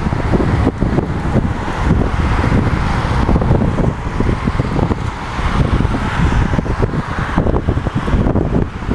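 Strong, gusty storm wind buffeting the microphone with a loud, fluttering low rumble. Over it runs a rushing hiss that swells and fades with the gusts.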